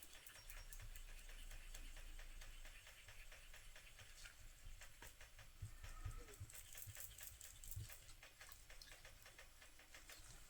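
Faint, irregular light clicks and taps of a stirring stick against a plastic mixing cup as resin and white pigment paste are stirred.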